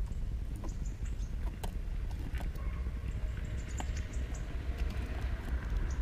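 Scattered light taps and clicks at a wooden seed feeder, with a few brief high-pitched notes, over a steady low rumble.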